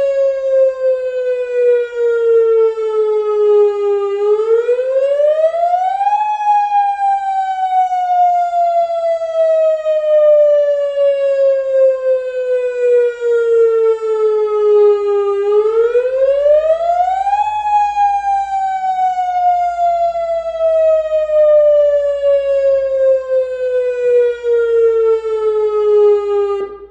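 Emergency warning siren wailing in a slow cycle: its pitch falls steadily for about ten seconds, then climbs quickly over about two seconds, twice over, and it cuts off at the very end.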